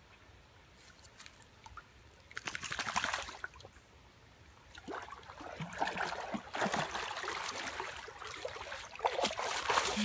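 A dog wading through a shallow stream, its legs splashing and sloshing the water in irregular bursts. It begins about two seconds in and runs almost without a break through the second half.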